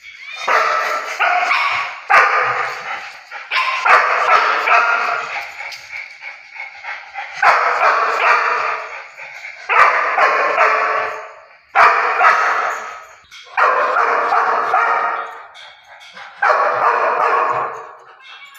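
Puppy barking and yipping in repeated bouts, about eight in all, each lasting a second or so with short gaps between.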